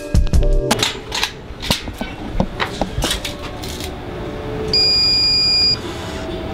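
Irregular footsteps and clicks, then an electronic keypad door lock sounding one steady high beep of about a second as its code is entered.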